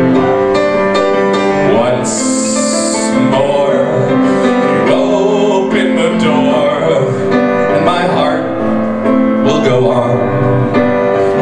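A man singing to his own piano accompaniment, with held notes over chords, and a brief hiss about two seconds in.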